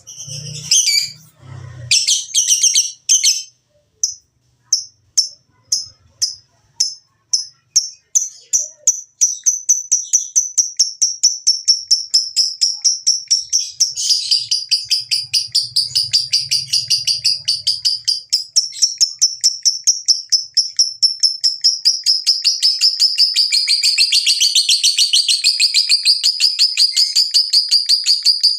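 Lovebird ngekek: separate high chirps that speed up over the first several seconds and run into a long, unbroken rapid chatter.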